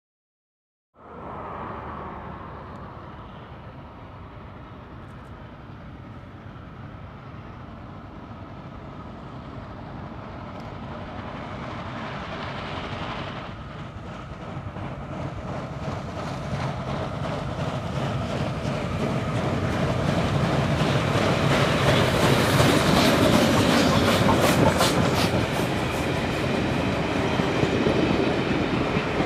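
Beyer Garratt steam locomotive 6029 hauling a passenger train, coming up from a distance and passing, the sound growing louder throughout. Carriage wheels clicking over the rail joints near the end as the coaches roll by.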